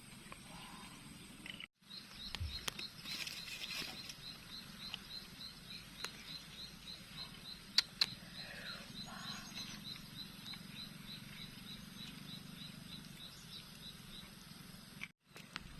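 A small animal calling outdoors: a short, high chirp repeated evenly about three times a second for most of the clip, over low background noise, with a few sharp clicks.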